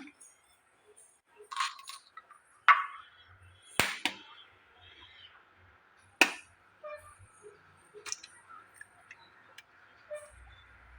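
Two eggs cracked on the rim of a bowl: about five sharp taps and clinks spread out, with quiet between them.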